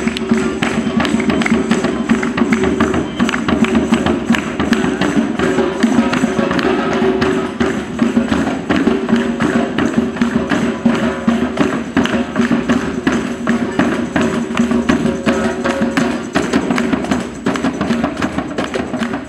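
Live music with fast, dense hand percussion and tambourine jingles over sustained pitched tones.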